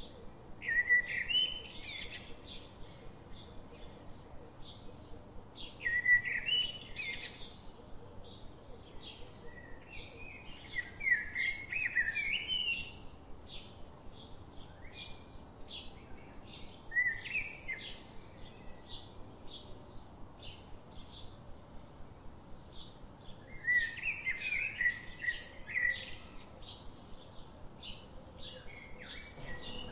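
Birds singing: short warbling phrases every few seconds over a steady run of high chirps, about two or three a second.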